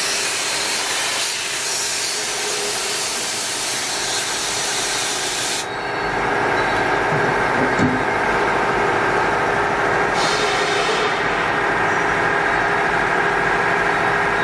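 Air hissing steadily from the machining center's flexible nozzle as it blows chips off the machined workpiece, cutting off about five or six seconds in. After that the VMC650 vertical machining center hums steadily, with one short hiss about ten seconds in.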